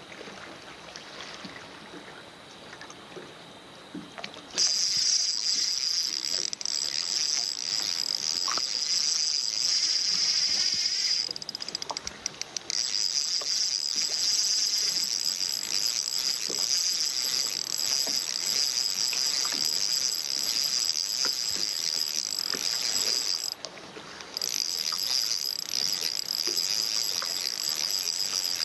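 Crickets or other autumn insects chirping steadily, a dense high-pitched trill that comes in about four seconds in and breaks off briefly twice, with faint ticks underneath.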